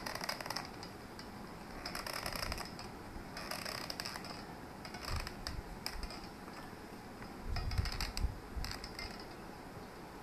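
Hot glue gun's trigger squeezed in several short bursts, its feed mechanism clicking and ratcheting as it pushes the glue stick through. There are a few low knocks of handling against the table.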